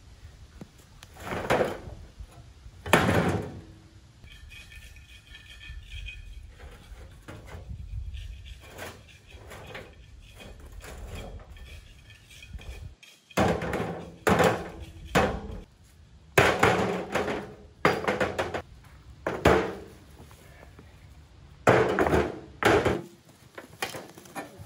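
Stones tossed one at a time into a metal wheelbarrow, each landing with a sharp knock and brief ring. Two land about a second and three seconds in, then a faster run of about ten follows in the second half as the barrow fills.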